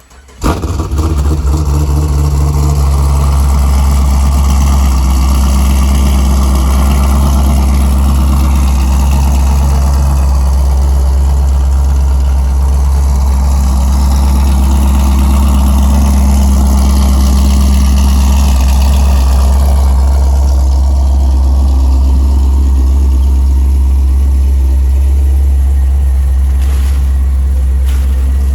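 Cold start of a cammed LS-family V8 in a VE Commodore / Pontiac G8 GT in sub-zero weather: it fires suddenly about half a second in, then runs loud and steady at a cold idle.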